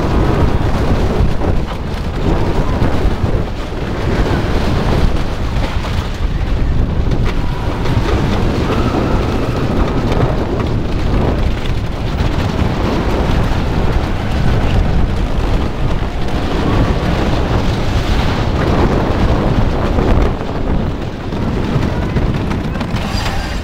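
Wooden roller coaster train rumbling and clattering along freshly re-tracked wooden track, heard from a seat on the moving train.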